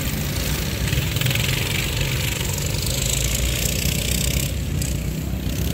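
Several box-stock Baja minibikes' small engines running together, steady and continuous, as the bikes race around a dirt track.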